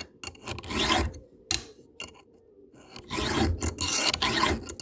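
Hand file rasping on a chainsaw chain cutter tooth. There are a few strokes, a pause of about a second and a half, then steady back-and-forth strokes again. The file is dressing the top plate and gullet of a damaged cutter to bring it back to a sharp, straight edge.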